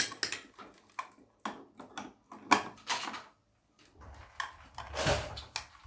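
Light, scattered clicks and knocks of toy ice cream pieces being handled and set down, with a sharper click about two and a half seconds in and a duller thump about five seconds in.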